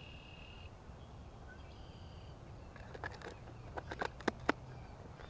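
A few sharp clicks and taps of clear plastic cups being handled during bait mixing, clustered from about three to four and a half seconds in, over a steady low outdoor hum. A faint short high chirp sounds near the start.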